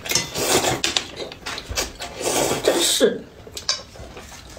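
A person slurping noodles, loud and noisy for about three seconds, then dropping to quieter chewing with a few small clicks.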